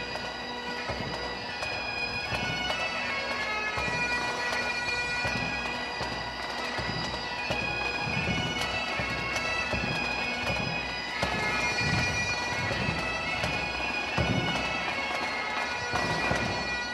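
Pipe band playing: Highland bagpipes sounding a melody over their steady drones, with a bass drum beating under them.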